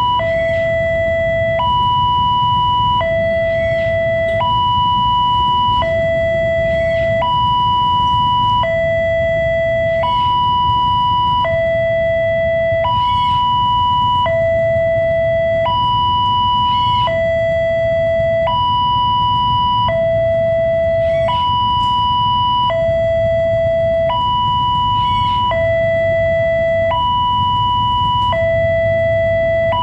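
Electronic warning alarm of a railway level-crossing barrier, sounding from its pole-mounted horn loudspeaker as a two-tone hi-lo signal: each tone is held about a second and a half before switching, over and over. A passing train rumbles low underneath.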